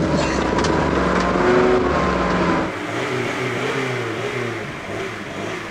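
Naturally aspirated diesel engine of a Mercedes-Benz 250 GD Wolf running under load, its pitch rising and falling, as it tows a stuck Lada Niva in its extra-low gear. The sound changes abruptly a little under three seconds in.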